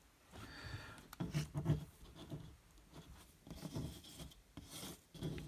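Baseball trading cards being handled and slid against one another, a series of soft, irregular scrapes and light clicks as cards are shuffled through a stack.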